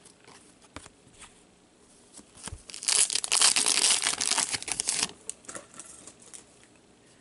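Foil trading-card pack torn open by hand: a crinkling rip that lasts about two seconds, starting near three seconds in, after a few light ticks of cards being handled.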